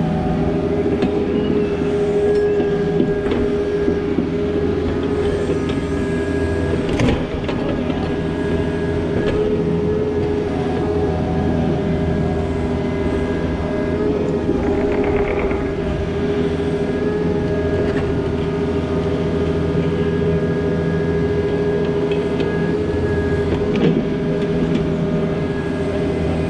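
Takeuchi TB260 mini excavator's diesel engine running steadily under work, with a constant drone and a higher whine. A couple of sharp knocks cut through, about seven seconds in and again near the end.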